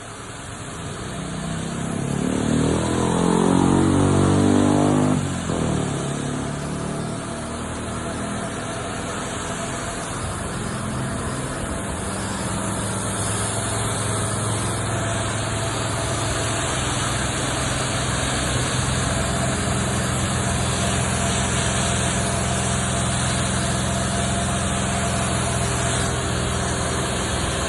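Steam cleaning machine's motor spinning up, rising in pitch and level for about five seconds, then dropping back suddenly and running steadily under a constant hiss.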